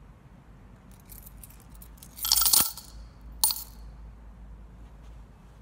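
Coins dropped into an offering bowl: a loud clinking burst of a handful landing about two seconds in, then a second, shorter clink about a second later.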